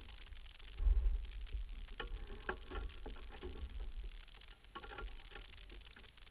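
Wind buffeting the microphone of a camera on a sailboat under way, a low rumble that comes in strongly about a second in and gusts on and off. Water rushes along the hull underneath, with a few light knocks from the boat's gear.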